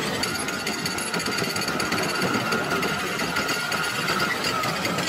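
Potato handling machinery running: conveyor belt and spiral-roller cleaner with potatoes and soil rattling over them, a dense steady clatter with a faint steady high hum.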